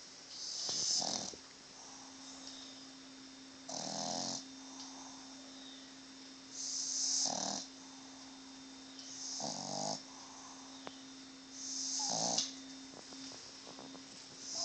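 Boston Terrier snoring loudly, with a rattling, hissy snore about every three seconds, six in all.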